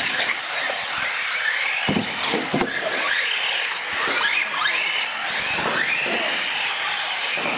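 Several radio-controlled model UTVs racing at once: their electric motors whine, gliding up and down in pitch as they speed up and slow down, with a few knocks as the cars bump about two seconds in.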